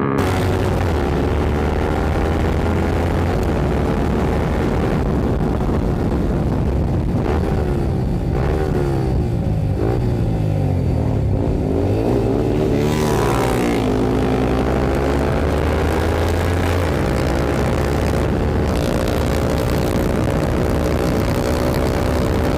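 Two single-cylinder motorcycles with loud aftermarket exhausts running together, a KTM Duke 200 and a Yamaha R15 V4. Their engine notes rise and fall as they rev and change speed, and the two pitches cross each other around the middle.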